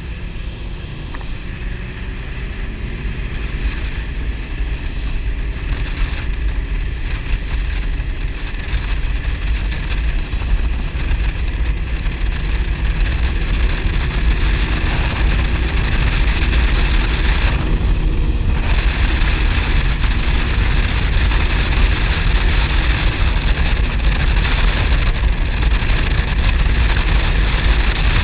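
Offshore powerboat engines running at speed, with wind rushing on the microphone and water noise. The sound grows louder over the first half, as if the boat is speeding up, then holds steady.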